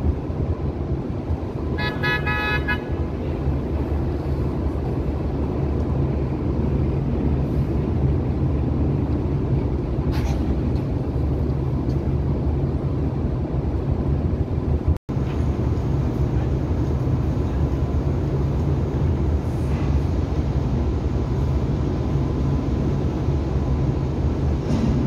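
Engine running steadily with a low rumble, and one short vehicle horn toot about two seconds in.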